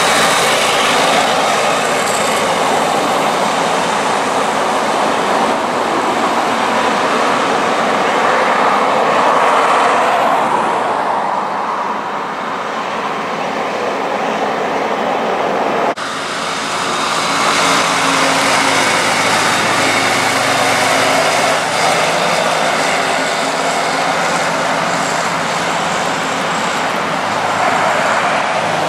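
Chamberlain 9G tractor's diesel engine running steadily as it travels along the highway, with road traffic and tyre noise. About 16 s in the sound cuts to another stretch of traffic, with the engine still running.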